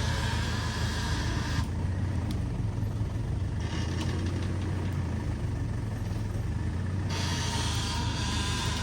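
A large engine running steadily with a low hum, typical of the heavy vehicle used to winch and pull the log. Higher-pitched noise over it fades about one and a half seconds in and comes back near the end.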